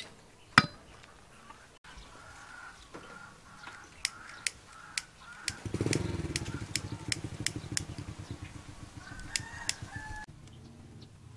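Chickens clucking, with a string of sharp clicks. From about halfway a low, rapidly pulsing rumble comes in, the loudest sound, for several seconds before it fades.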